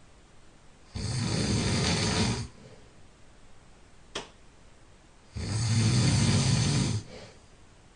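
A person snoring loudly in deep sleep: two long rasping snores about four seconds apart, each lasting about a second and a half, with quiet breathing between them. A brief click sounds between the two snores.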